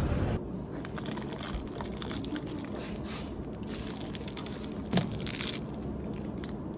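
Scattered crinkling and crackling handling noises with small clicks, and one sharper tap about five seconds in.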